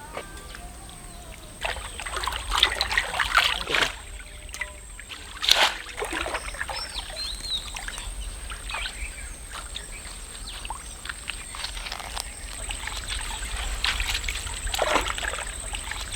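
Shallow water splashing and trickling, irregular, as people wade and grab fish by hand in a draining pond. The loudest splash comes about five and a half seconds in.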